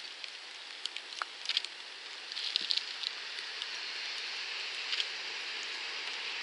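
Steady rain falling, a high hiss with scattered ticking patters of drops, a small flurry of them about two and a half seconds in.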